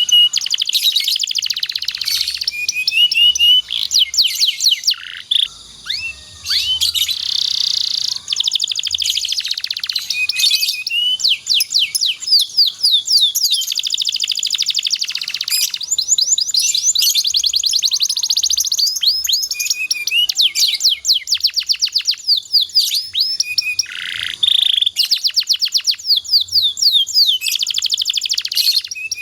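Domestic canary singing a long, loud song of rapid trills and rolls, fast runs of repeated notes with a few brief pauses.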